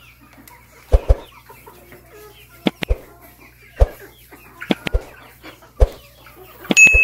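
Chickens clucking softly, broken by a series of sharp loud knocks, several in quick pairs. A short steady electronic tone sounds near the end.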